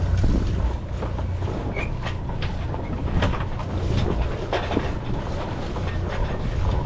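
A sailing yacht's inboard engine running under a steady rumble of wind on the microphone, with scattered clicks and knocks from lines and deck gear as the mainsail is hauled in and furled.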